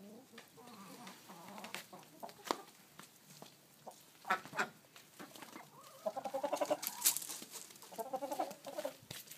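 Domestic hens clucking, with a run of quick, pitched clucks about six seconds in and another near the end, and a few sharp taps scattered before them.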